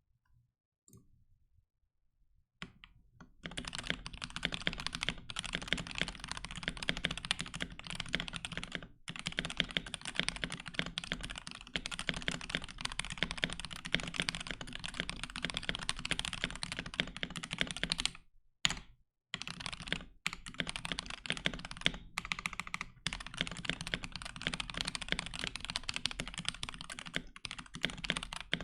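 Mechanical keyboard with lubed and filmed C3 Tangerine linear switches on a POM plate with POM keycaps, typed on fast and without let-up from about three seconds in: a soft, subtly clacky sound. There is a short pause about two-thirds of the way through. The owner says a few switches have spring crunch or ping that can probably be heard.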